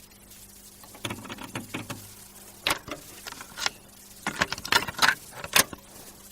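Irregular light clicks, taps and rustles, some louder than others, over a faint steady hum.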